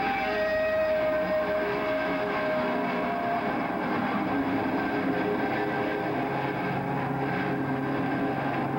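Electric guitar feedback through stage amplifiers: long held, ringing tones over a noisy wash, with a low steady amplifier hum coming in about seven seconds in.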